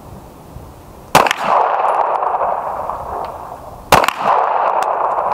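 Two pistol shots from a red-dot-equipped Smith & Wesson M&P, about three seconds apart, each with a long tail lasting a couple of seconds.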